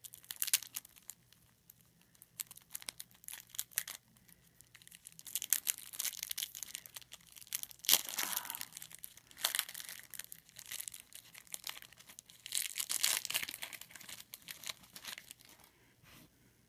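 Plastic wrapper of a pack of trading cards crinkling and tearing as it is worked open by hand, in irregular bursts with short pauses between.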